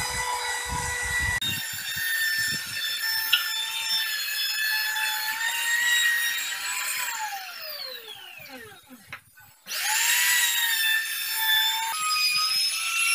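Electric trim router running at high speed with a high-pitched whine. About seven seconds in it is switched off and its pitch falls as it winds down. It starts again about ten seconds in and rises quickly back to speed.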